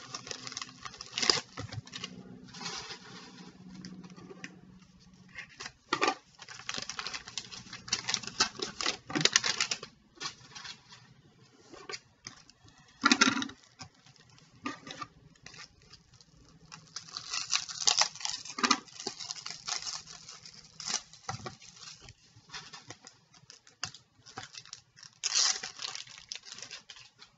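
A padded paper envelope is cut and torn open, then trading cards in stiff plastic holders are pulled out and handled: a run of irregular rustles, crinkles and small clicks.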